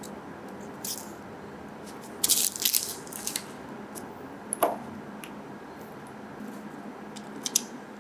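Small plastic kit parts being handled on a wooden table: scattered light clicks and taps, with a short burst of crinkly rustling about two to three seconds in and a brief squeak near the middle, over a faint steady hum.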